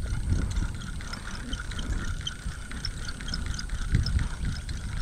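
Fishing reel being cranked to wind the line back in for a recast, its gears whirring and clicking. A low uneven rumble on the microphone runs under it.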